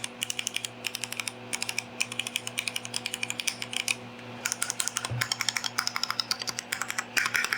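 Keychron Q5 mechanical keyboard fitted with Akko Jelly Black linear switches, typed on in quick runs of keystrokes as a sound test of the newly installed switches, with brief pauses between runs.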